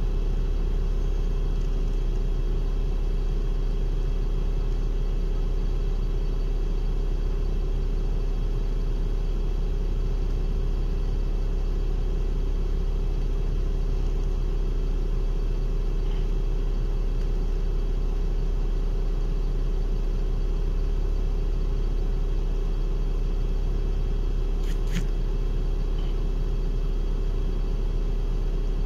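Articulated city bus idling while it stands at a stop, heard from inside the passenger cabin as a steady low drone; a single short click near the end.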